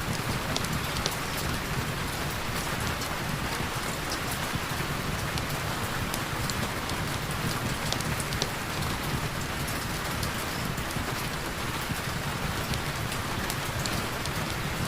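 Heavy rain falling steadily, an even hiss with scattered sharp ticks of drops throughout.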